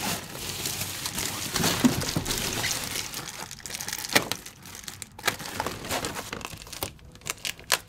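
Foil bubble insulation crinkling and rustling as it is handled and wrapped around a diesel heater's flexible duct, with a few sharp clicks scattered through.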